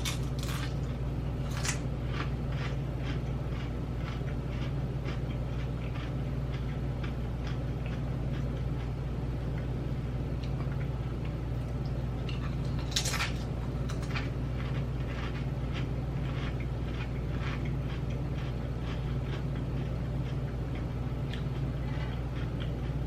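Rippled potato chips being bitten and chewed close to the microphone: a steady run of crisp crunches, about two or three a second, with a few louder, sharper bites near the start and about halfway through.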